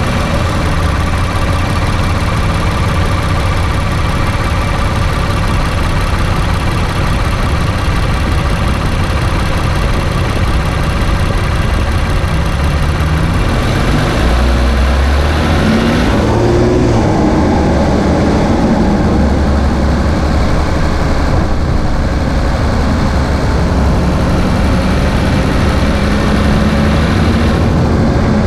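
2017 Infiniti Q50's VR30 twin-turbo V6 running on a drive: a steady engine drone whose pitch shifts about halfway through and rises slowly near the end.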